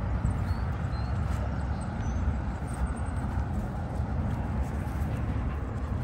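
Wind buffeting the microphone, a steady, fluctuating low rumble outdoors by a river, with a few faint high chirps in the first couple of seconds.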